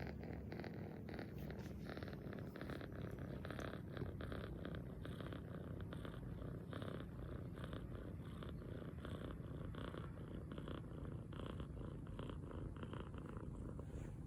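A cat snoring in its sleep: a continuous fine rattling with each breath, swelling about every second and a half.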